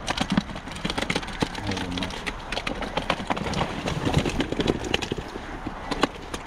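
Fish flapping and slapping in a keepnet and weigh sling as the catch is handled: a rapid, irregular patter of wet slaps and knocks.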